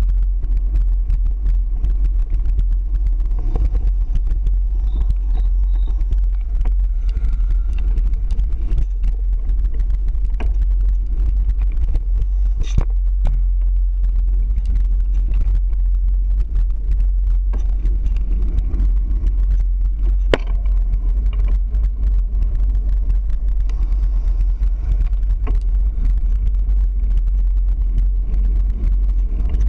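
Bicycle ride: steady low wind rumble on the microphone and tyre noise on the pavement, broken by scattered clicks and rattles from the bike going over bumps.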